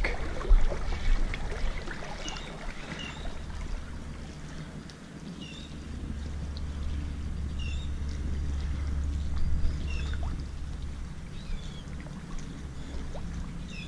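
Shallow water sloshing and lapping around a wading angler's legs, over a low rumble that swells for a few seconds in the middle.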